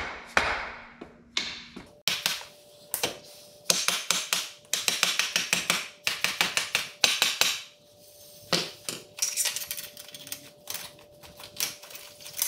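Irregular metallic clinks, taps and knocks as the greased rear axle and wheel are fitted back onto a Honda CRF450 dirt bike, with a faint steady hum underneath from about two seconds in.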